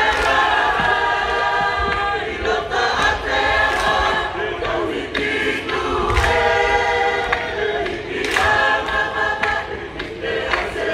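Tongan lakalaka: a choir singing held, multi-part phrases of about two seconds each, with a few sharp hits cutting through.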